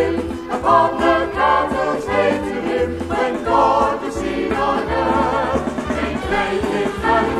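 Religious song sung by a group of voices in harmony, with wavering held notes over an instrumental accompaniment and a steady bass line.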